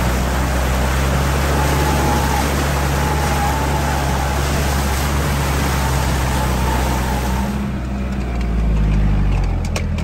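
Off-road 4x4 driving over rough ground: a steady engine drone under a loud, even hiss. About three-quarters through, the hiss drops away and the engine note swells, with a couple of sharp clicks near the end.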